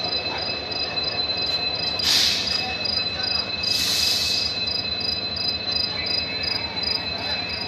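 Crickets chirping steadily at night: a continuous high-pitched trill with a second call pulsing about three times a second. Two brief hissing surges come about two and four seconds in.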